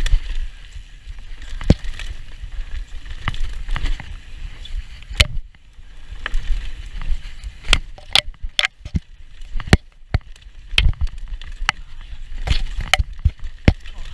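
Mountain bike ridden fast down a rough dirt trail: wind rumbling on the camera microphone, with many sharp clacks and rattles from the bike over bumps, coming thicker in the second half.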